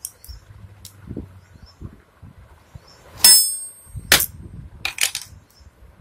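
Screwdriver working a pin out of a motorcycle drive chain link on a concrete floor: small metal clicks and scraping, then a loud ringing metal clang about three seconds in, a sharp knock a second later and a few more clinks.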